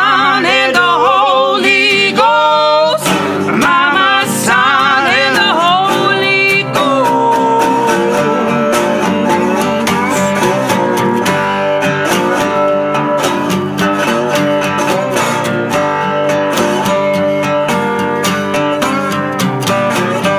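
Live folk song: singing with vibrato over acoustic guitar. The voice stops about six seconds in, and the guitar carries on alone, strummed.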